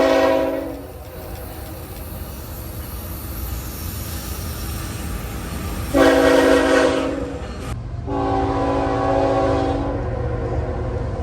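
Train horn blowing in three blasts: one ending about a second in, another at about six seconds, and a longer one from about eight seconds. The steady rumble of the passing train fills the gaps between.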